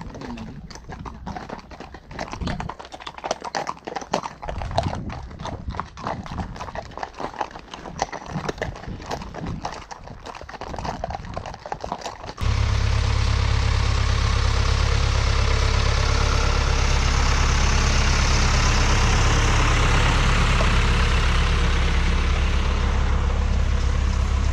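Horses' hooves walking on a gravel track, a busy run of clip-clopping steps. About halfway through it is cut off suddenly by a loud, steady rush of wind buffeting the helmet-camera microphone, which lasts until just before the end.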